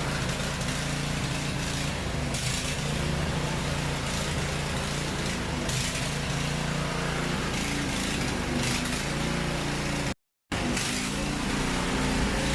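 Small engine running steadily at a constant speed, its exhaust note unchanged throughout. The sound cuts out for a moment about ten seconds in.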